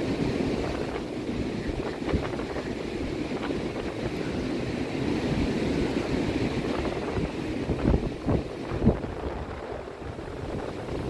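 Wind buffeting the microphone over the steady wash of low surf, with two sharper gusts near the end.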